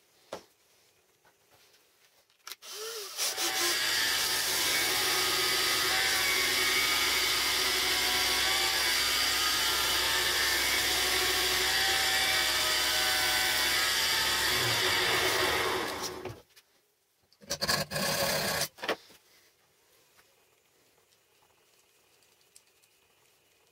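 Belt sander running while a small wooden knob, spun in a cordless drill, is pressed against the belt and sanded round; the noise starts about two seconds in, holds steady for some thirteen seconds and winds down, and a second short burst of about a second follows. A single click comes just before the machine starts.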